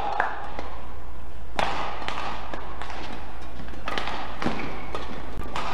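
Badminton rackets striking the shuttlecock in a rally: a handful of sharp hits a second or so apart, over a steady murmur of hall noise.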